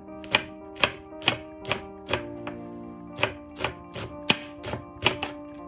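Santoku kitchen knife slicing a Korean leek into thin rounds on a wooden cutting board: a steady run of sharp knife knocks on the board, about two a second, over background music.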